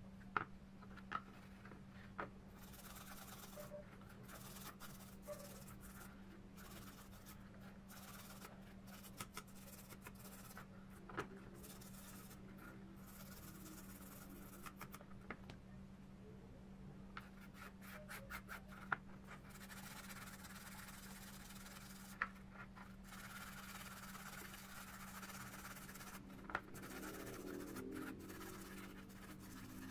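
Toothbrush bristles scrubbing small metal speedometer parts, including a small gear, in a tray of cleaning liquid: faint, intermittent brushing with scattered sharp clicks as parts are handled. A steady low hum runs underneath.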